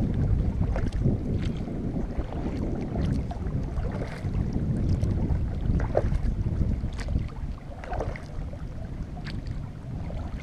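Wind buffeting the microphone with a gusty low rumble, over the light splashing and dripping of a kayak paddle dipping into calm water, with scattered small ticks.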